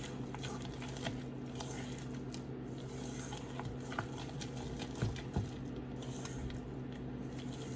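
Spatula stirring thick gluten-free cookie batter in a mixing bowl, soft squishing and scraping with a few light taps, worked to break up clumps of almond flour. A steady low hum runs underneath.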